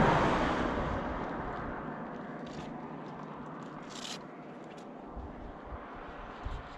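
A passing vehicle's noise fades away over the first two seconds. Faint scattered clicks follow, with a brief hiss about four seconds in.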